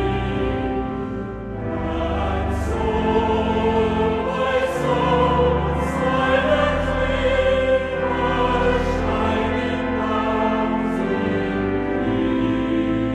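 Choral music: a choir singing long, held notes.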